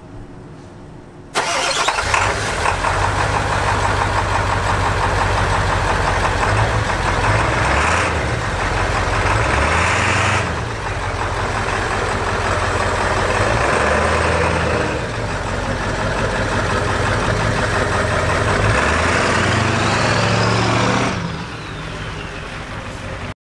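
Ford F-350 pickup's engine starting up abruptly about a second and a half in, then running steadily, with its pitch shifting a few times before it eases near the end.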